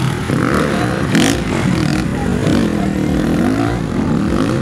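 Motocross dirt bikes' engines revving hard and easing off on the track, several at once. Their pitch keeps rising and falling and overlapping.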